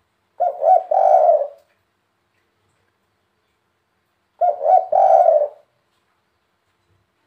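Spotted dove (tekukur) cooing: two phrases about four seconds apart, each of two short notes followed by a longer drawn-out coo. This is the three-syllable 'kuk 3' call prized by dove keepers.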